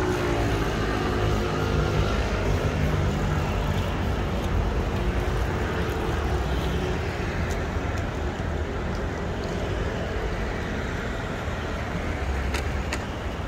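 City street traffic: cars passing, with steady road noise. Two short clicks near the end.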